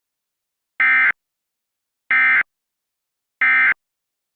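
Emergency Alert System end-of-message data tones: three short, loud, buzzy digital bursts (the SAME "NNNN" code), evenly spaced about a second and a quarter apart. They signal the end of the alert message.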